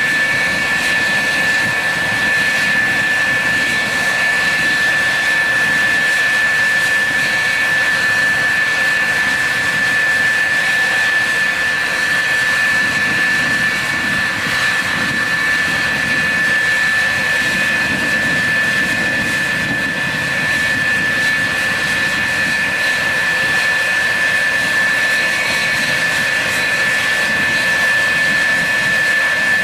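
Jet engines idling, a steady whine with one strong high-pitched tone held over a rushing noise, unchanging throughout.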